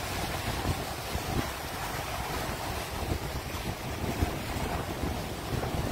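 Small waves breaking in the shallows, with wind buffeting the microphone.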